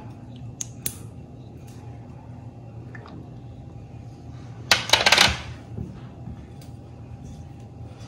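Silicone spatula scraping and tapping an ingredient out of a plastic cup into a steel bowl of milk: a few light clicks, then a brief louder clatter of several quick knocks about five seconds in.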